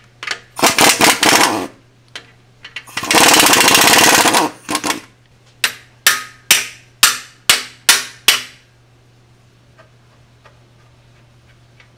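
Air impact wrench hammering at bolts under a car in two bursts, about one second and one and a half seconds long, loosening them. Then six short sharp knocks come about half a second apart.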